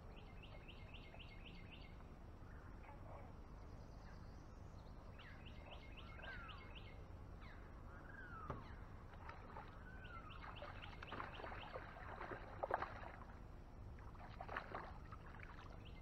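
Birds calling in swampy woodland: a quick run of about seven high, evenly spaced notes repeats every several seconds, with scattered slurred whistles between. A few louder brief knocks and rattles come late on.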